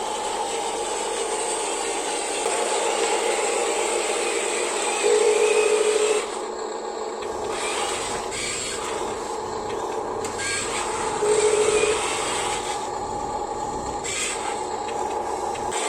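Electric motors and plastic-and-metal gearboxes of a Huina radio-controlled excavator whining as it works, with sand scraping under the bucket. The motor pitch swells louder twice, about five and eleven seconds in.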